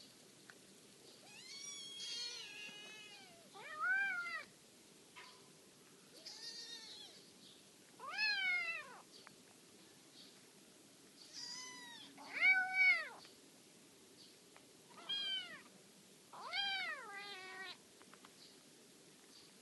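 Young kittens meowing: about nine high-pitched calls, each rising and falling in pitch over roughly half a second, spaced a second or two apart, the loudest about two-thirds of the way through.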